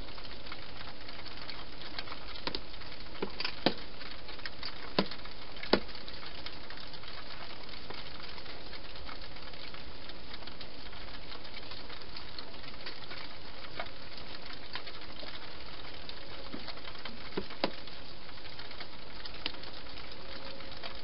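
A hedgehog feeding at a bowl inside a plastic feeding box: scattered sharp clicks, bunched about three to six seconds in and a few more near the end, over a steady hiss.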